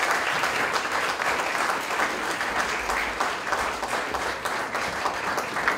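An audience applauding, a dense, steady clapping of many hands at an even level.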